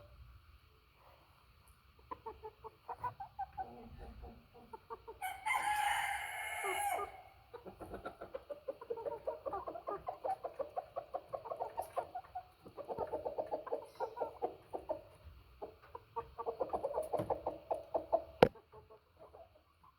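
Heavy-breed hens clucking in rapid runs of short notes, with one loud drawn-out call about five seconds in. A single sharp click comes near the end.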